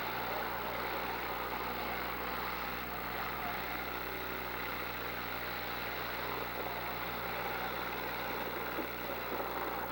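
Demolition derby cars' engines running together, a steady mixed engine noise with no distinct crashes.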